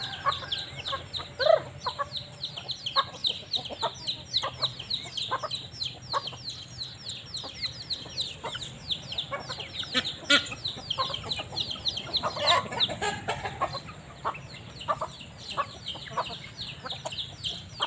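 A flock of young chickens feeding on scattered grain, peeping continuously in a dense run of short high downward chirps, with frequent short clucks mixed in.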